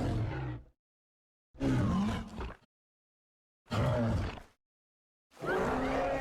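A string of separate monster roar and growl sound effects of the Godzilla and dinosaur kind, each about a second long and cut off into dead silence: one ending just after the start, two in the middle, and another beginning near the end.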